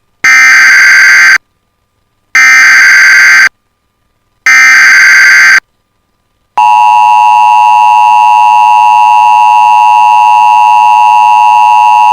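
Emergency Alert System SAME header: three loud bursts of screeching digital data tones, each about a second long with silent gaps between them. About six and a half seconds in, the steady two-tone EAS attention signal starts. Together they open an EAS alert, here a flash flood warning.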